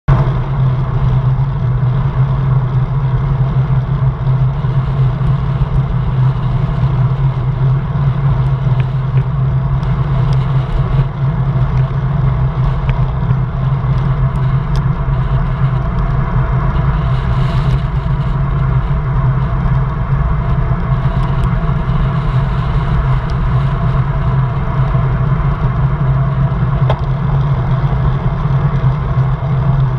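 Wind buffeting a handlebar-mounted camera's microphone on a road bike descending at speed, mixed with tyre noise on asphalt: a loud, steady, low rushing.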